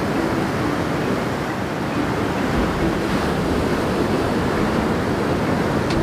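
Surf breaking and washing up a sandy beach: a steady rush of waves from a waist-high typhoon swell.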